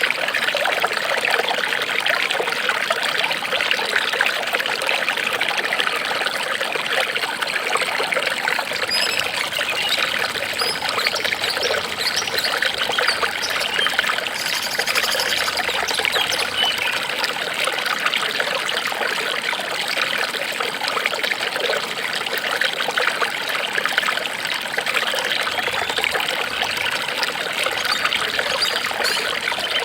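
Running water trickling and splashing steadily, a continuous dense babble like a small stream.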